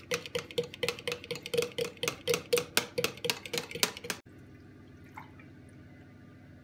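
Eggs being beaten by hand in a plastic jug, the utensil clicking against the sides about five strokes a second; it cuts off suddenly about four seconds in.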